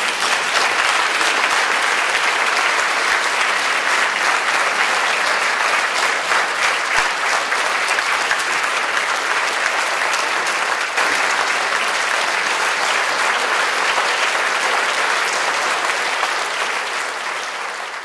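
Large audience applauding, dense steady clapping that fades out near the end.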